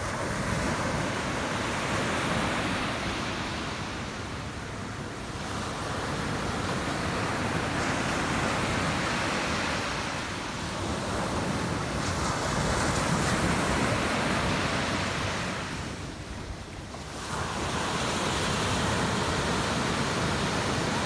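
Ocean waves washing in, a continuous rush of surf that swells and ebbs about every five or six seconds.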